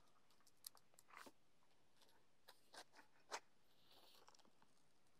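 Near silence, broken by about five faint clicks and rustles as a knife pries apart the spiny husk of a small Montong durian.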